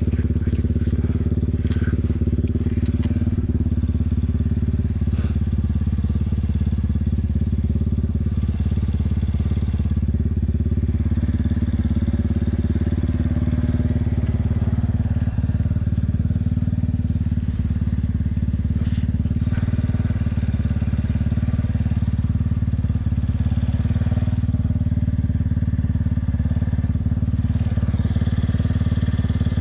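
Yamaha sport quad's engine running steadily at low speed close to the microphone, with a few sharp cracks and clicks in the first several seconds.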